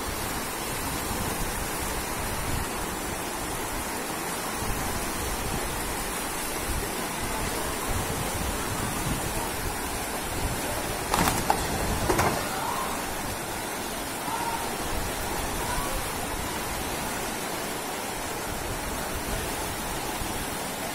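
Floodwater rushing down a street in a fast torrent: a steady, even rushing noise. A couple of brief louder sounds stand out a little past the middle.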